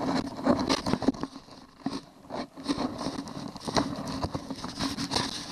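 Handling noise: irregular rustling, scraping and clicks of hands and the camera moving about under a boat's bow deck.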